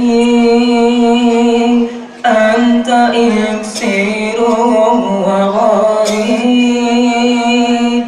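Unaccompanied Islamic devotional chant (sholawat) sung on long, held notes at a fairly steady pitch, breaking off briefly about two seconds in and then resuming.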